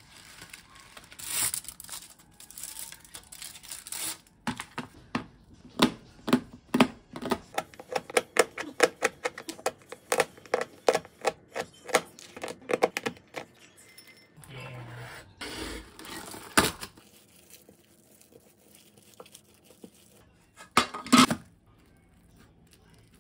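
A kitchen knife chopping bars of chocolate on a tray: a quick run of crunchy chops, about three a second, for several seconds. Before the chopping comes the rustle and tear of chocolate wrappers, and near the end a short loud crinkle of plastic wrap.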